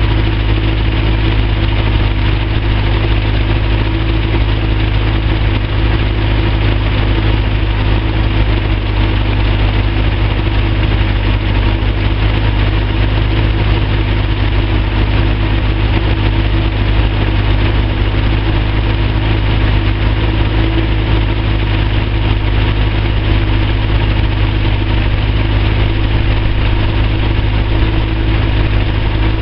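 Hovercraft engine idling, an even drone that holds the same speed throughout.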